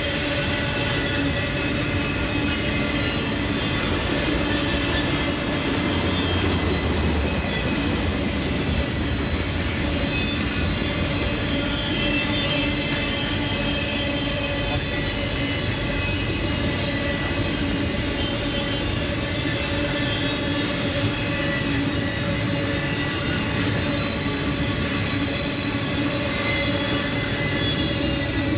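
Freight train of piggyback trailers on flatcars rolling past at speed: a steady, loud wheel-on-rail rumble with sustained ringing tones from the wheels.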